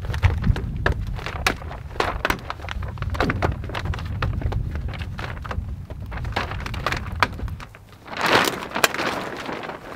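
Wind rumbling on the microphone, with many scattered sharp crackles and clicks. Near the end the rumble drops away and a louder crackling rustle takes over.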